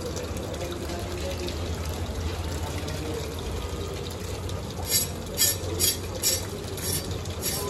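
Water sloshing in a bowl as pieces of hilsa fish are rinsed by hand. From about five seconds in comes a run of about seven short, sharp sounds, roughly two a second.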